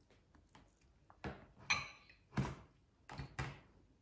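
Table knife clinking against a glass dish while cutting a block of butter into pieces: about five sharp clinks over two seconds, one ringing briefly.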